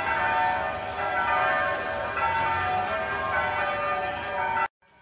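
Church bells ringing a peal, several bells struck one after another so their ringing tones overlap. The sound cuts off abruptly near the end.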